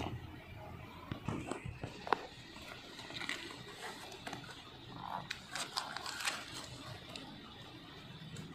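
Cardboard shipping box being opened by hand: scraping and crackling of the flaps and tape, with scattered sharp clicks, the sharpest about two seconds in and a cluster of them around six seconds in.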